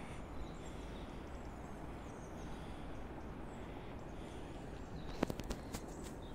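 Steady outdoor background noise with faint bird chirps, broken about five seconds in by a quick cluster of four or five sharp clicks.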